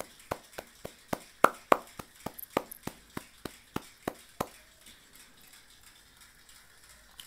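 Hand clapping, a few people applauding in sharp separate claps about three or four times a second, dying away about four and a half seconds in.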